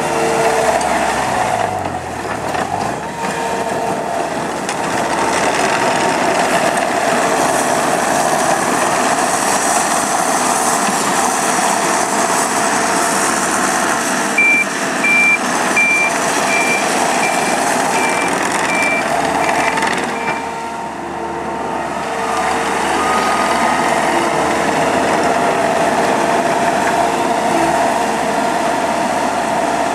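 Takeuchi TL150 tracked skid steer's 97-horsepower diesel engine running as the machine is worked, its pitch shifting. About halfway through, a backup alarm beeps about nine times at a steady pace while the machine reverses, and the engine eases off briefly just after.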